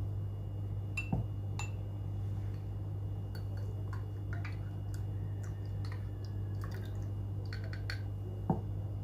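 Small clinks, taps and knocks of kitchen utensils and glassware being handled, over a steady low hum, with a louder knock about a second in and another near the end.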